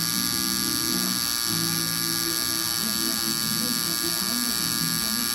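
Tattoo machine buzzing steadily, its needle working ink into skin.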